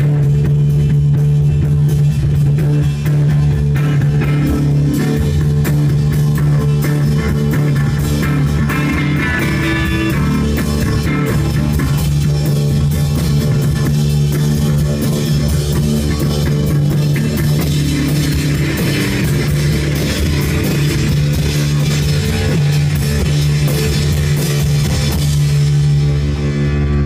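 Rock band playing live, electric guitar over a drum kit, a steady full-band passage.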